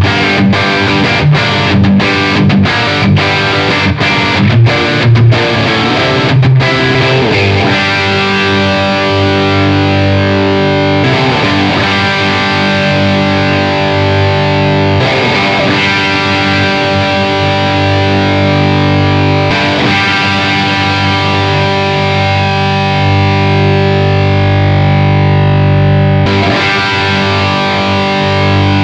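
Distorted electric guitar: a Gibson Les Paul with PAF-style humbuckers played through an overdriven amp. For the first several seconds it plays short, rhythmic chord stabs with brief gaps, then it moves to long chords left ringing, changing every few seconds.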